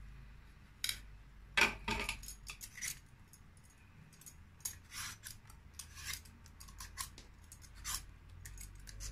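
A kitchen knife blade scraping and slicing the hard rind off a squash in short, irregular strokes, the blade rasping against the tough skin, loudest about a second and a half in.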